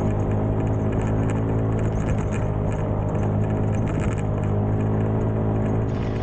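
Small single-cylinder four-stroke Honda motorbike engine running steadily at an even speed while riding.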